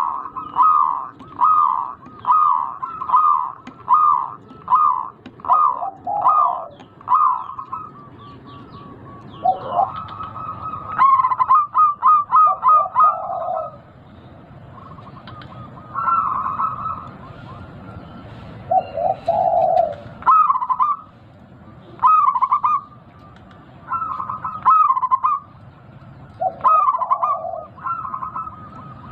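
Zebra dove (perkutut), a local bird with a big voice, cooing: bouts of short repeated coos, a rapid run of notes partway through and shorter phrases after brief pauses.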